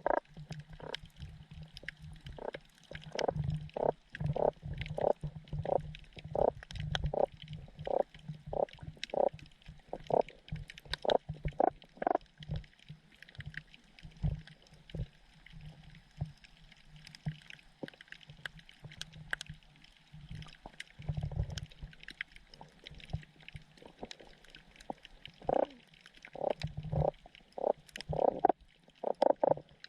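Sergeant major damselfish making a series of short low pops, about two a second in runs broken by pauses, over a steady low hum. These are sounds the fish may use to court a female or to hold territory.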